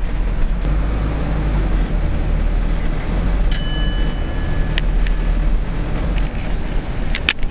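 Steady low rumble of a moving passenger vehicle heard from inside its cabin. About three and a half seconds in, a high ringing tone sounds for about a second, and there is a sharp click near the end.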